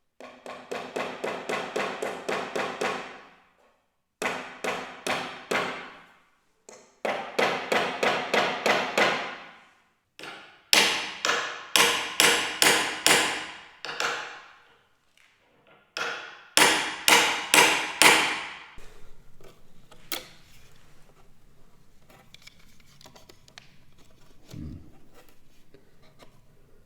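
Hammering in quick runs of about three to four ringing strikes a second, each run two to three seconds long with short pauses between, five runs in all. Lighter scattered taps and knocks follow in the last several seconds.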